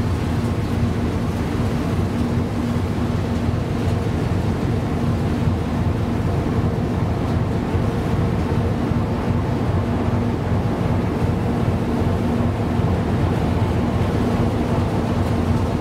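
Strong wind rumbling on the microphone over rough, breaking sea: a steady, dense noise. A faint low hum runs underneath, swelling and fading.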